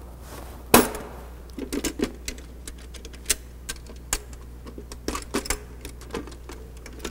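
Access cover being wrestled off a Deutz air-cooled inline five-cylinder engine: irregular clicks and knocks as it is worked loose, with one sharp knock just under a second in.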